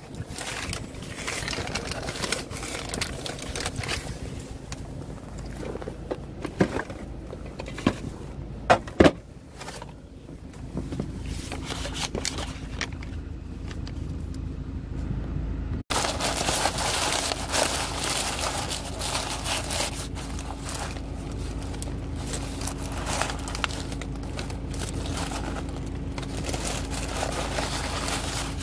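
Paper fast-food bag and sandwich wrapper rustling and crinkling as they are handled, with a few sharper crackles about nine seconds in. Under it runs the steady low hum of the car.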